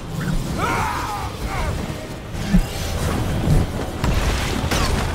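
Film fight-scene sound effects: mechanical whirring and clanking of a metal armor suit, with two sharp impacts about halfway through, over a film score.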